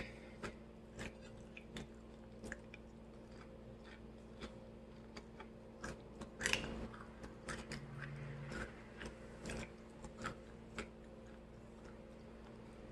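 Close-miked chewing of fish and chips: soft wet mouth clicks and smacks at irregular intervals, with one louder crunch about six and a half seconds in and a short low hum about eight seconds in.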